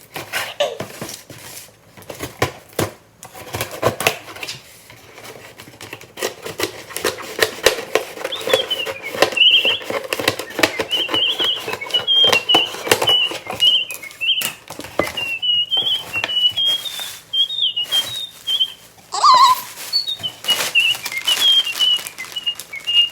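A person whistling a wandering tune, starting about a third of the way in, over steady rustling, crinkling and clicking of a package being opened and its wrapping handled.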